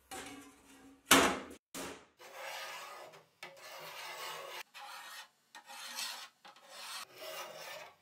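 A metal sheet set down on a workbench with a sharp knock about a second in, then the hardened steel points of a homemade compass scribing arcs into the sheet: about six scratchy scraping strokes, each half a second to a second long.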